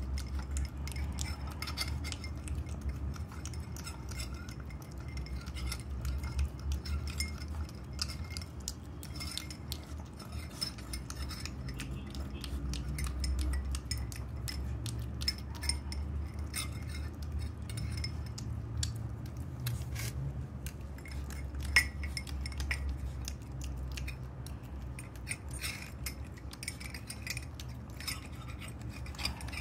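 Shih Tzu puppy eating from a ceramic bowl: many small, irregular clinks and clicks of its food and teeth against the bowl, with a steady low hum underneath.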